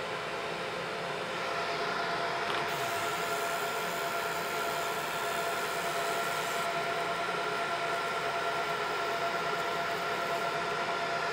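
Cloudray QS-50 50 W fiber laser engraver running, with a steady fan hum and a faint whine. From about 3 s to 7 s a high hiss joins in as the laser sweeps over a copper penny, cleaning its surface.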